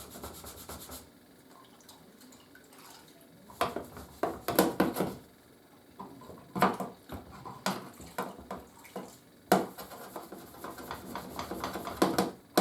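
A cast-iron bench vice being washed down with a scrubber and a bowl of water: a short spell of scrubbing, then, from about three and a half seconds in, irregular splashes, drips and sharp clatters against the metal and the bowl.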